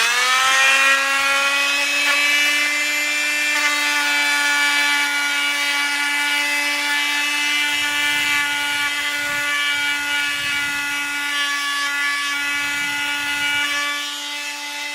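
Bosch oscillating multi-tool with a sanding pad, at its medium speed setting of 3, starting up with a quick rise in pitch and then running with a steady high buzz. From about halfway to near the end, the pad sands a piece of wood, adding an uneven low rubbing.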